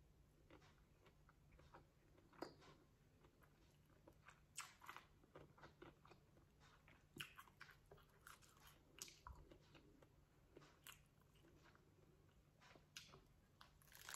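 A person chewing a lettuce-wrap taco up close: faint, irregular wet crunches and mouth clicks, then a louder crunching bite into the lettuce near the end.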